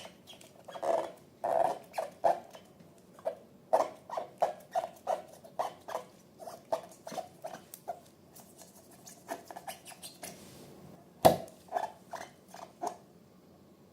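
Slime being squeezed and worked by hand, a run of short sticky squelches about two or three a second, with one sharper, louder snap about eleven seconds in.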